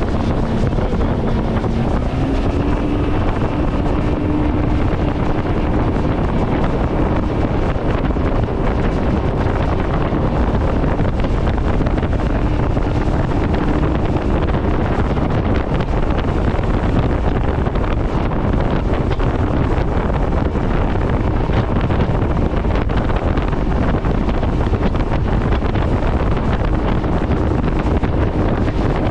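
Motorboat engine running steadily under way, its pitch stepping up slightly about two seconds in, with heavy wind buffeting the microphone.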